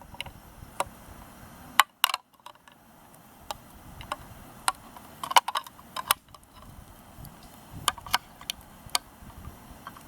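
Swiss Army knife can-opener blade levering its way around the rim of a tin can, cutting the lid in short strokes: a string of sharp, irregular metallic clicks, about one or two a second.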